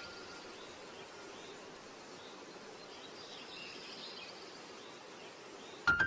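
Steady outdoor background hiss with faint bird chirps, heard twice. Music starts sharply right at the end.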